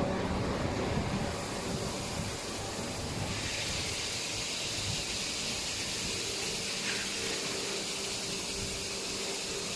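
A 15 kW high-pressure air compressor running steadily with a low hum and hiss. The hiss grows louder about three seconds in.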